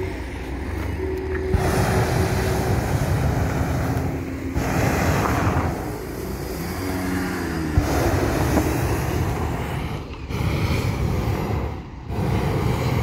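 Hot air balloon propane burner firing in several long roaring blasts, starting a little over a second in, with short breaks between them.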